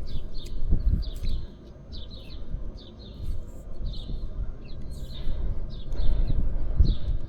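Small birds chirping rapidly, several short calls a second, over a steady low rumble.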